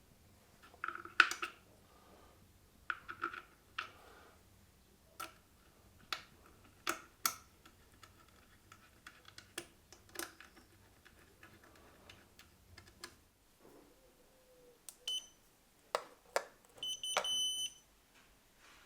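Scattered clicks and knocks of the electric scooter's parts being handled, then near the end a short high electronic beep from the scooter, with a brief chirp just before it.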